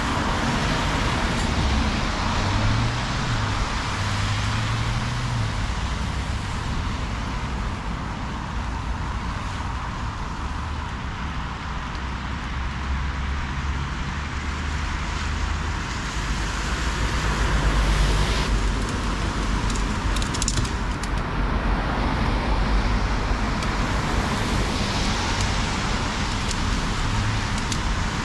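Steady road traffic passing, a continuous rush of tyres with a low engine rumble that swells louder about two-thirds of the way through as a heavier vehicle goes by.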